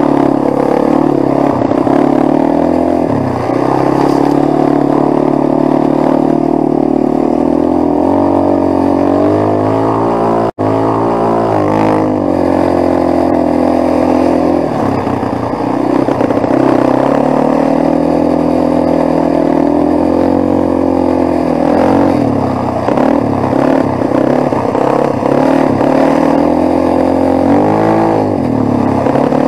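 Quad (ATV) engine running while under way, its pitch rising and falling as the throttle is opened and eased off. The sound cuts out for an instant about ten seconds in.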